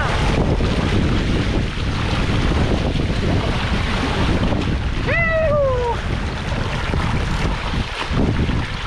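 Wind buffeting the microphone over the wash of waves, a steady rumbling roar. About five seconds in, a short call falls in pitch.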